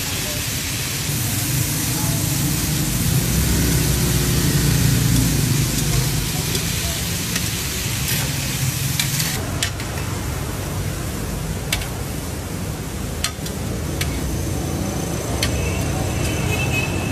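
Kaleji (liver) sizzling on a hot tawa griddle, a steady hiss over a low rumble, with a few sharp clicks from about halfway on.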